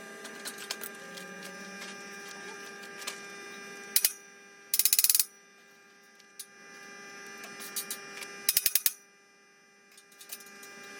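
Suzukid Stark 120 AC arc welder's transformer humming steadily, with two short bursts of rapid crackling clicks about five seconds in and near nine seconds, typical of brief tack welds.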